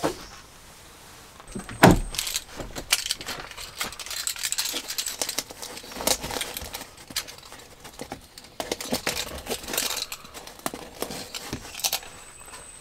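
Metal carabiners jingling and clinking against each other as they are handled and clipped onto a door-panel organizer pouch. A sharp knock comes about two seconds in, followed by rapid, irregular jangling until near the end.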